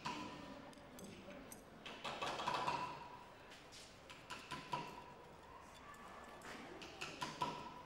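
Scattered light taps and clinks of hand tools and pottery on a worktable.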